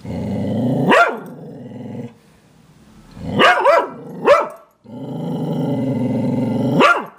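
A dog growling in long low stretches, each breaking off into a sharp bark, with three quick barks in between.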